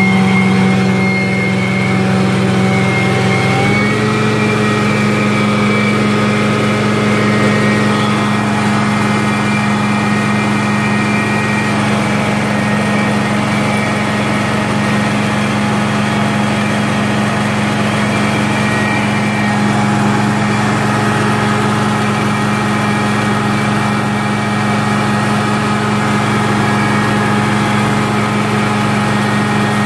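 Prochem Legend truckmount carpet-cleaning machine running steadily under load, engine and vacuum going at high speed; its pitch steps up slightly about four seconds in and then holds. Screaming.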